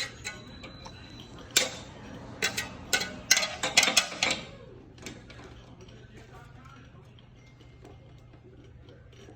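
A quick, irregular run of sharp clicks and knocks from tools working on metal parts, about ten in three seconds, over a steady low hum.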